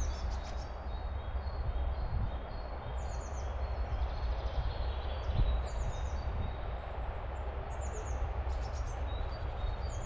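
Small songbirds chirping in series of short, falling notes over a steady hum of road traffic.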